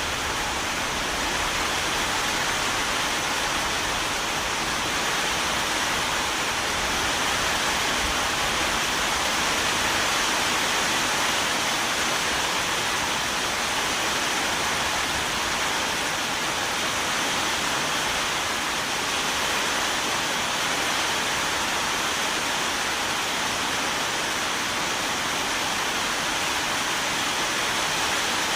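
Steady rain falling: an even hiss with no thunder and no change in level.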